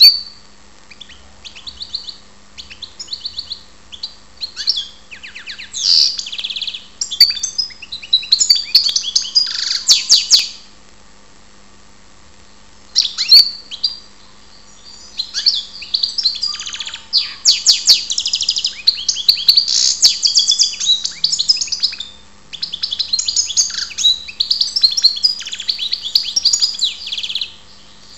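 European goldfinch singing its fast, twittering song in long phrases of rapid trills and chirps, breaking off twice for a few seconds between runs.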